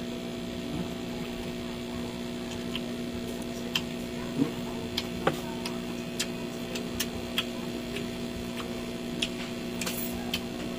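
Steady electrical hum under scattered small clicks and taps of eating: skewers and spoons knocking against glasses and plates, and chewing.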